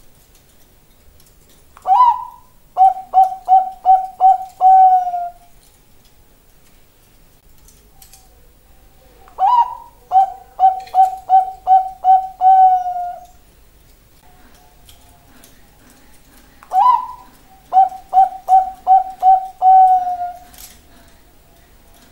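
A Bangkok-strain zebra dove (perkutut) singing its cooing song three times, about seven seconds apart. Each phrase opens with an upswept note, followed by a quick run of short, even coos that ends in a longer, drawn-out coo.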